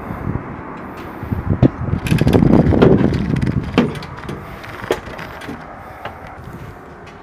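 Scattered knocks and clanks on a CH-53 helicopter's metal cabin and door over a low rumble. The rumble swells between about two and three and a half seconds in.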